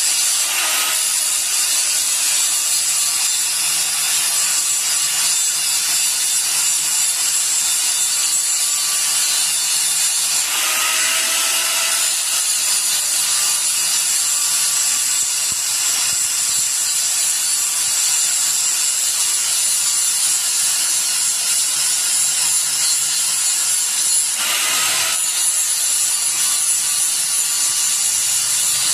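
Grinder working an iron rod: a steady, high-pitched grinding hiss of the abrasive disc on the metal. The sound shifts briefly in pitch about a third of the way in and again near the end.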